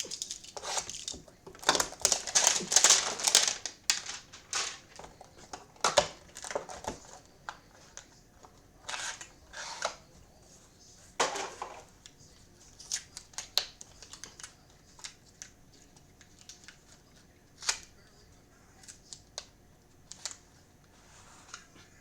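Trading-card pack wrapping being torn open and crinkled, loudest in a dense burst a couple of seconds in. After that come scattered short rustles and light clicks of cards being handled.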